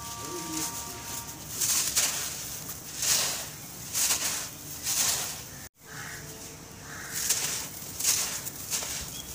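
Dry sand clumps being squeezed and crumbled by hand, giving a crisp crunching with loose grains pouring down in a gritty hiss. The crunches come in short bursts about once a second, and the sound cuts out for an instant about halfway through.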